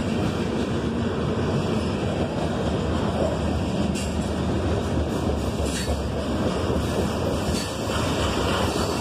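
Freight cars (covered hoppers and gondolas) rolling past on the rails: a steady rumble and rattle of steel wheels on track.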